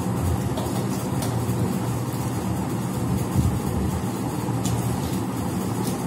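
A steady low mechanical hum, with a few faint ticks.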